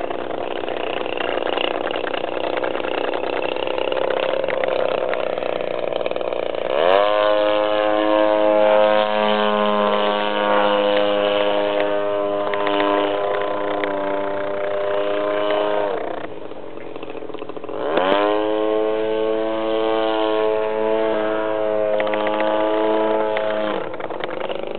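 Radio-controlled model plane's engine in flight: a faint steady drone, then about seven seconds in it opens up with a quick rise in pitch to a steady buzz. It holds for about nine seconds, falls away, and opens up again a couple of seconds later before dropping near the end.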